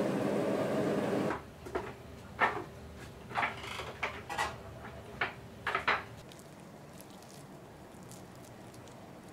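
Steady rushing stove noise beside a steaming stockpot, cutting off abruptly about a second in. Then metal tongs clink and knock against a stainless steel bowl several times as chunks of braised pork are moved, and it settles to quiet kitchen room tone with faint small sounds.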